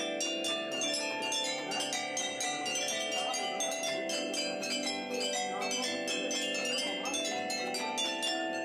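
Campanine, sets of tuned metal bars and tubes struck with mallets, playing a fast melody of ringing, bell-like notes. Many strikes a second overlap, with sustained steady tones beneath.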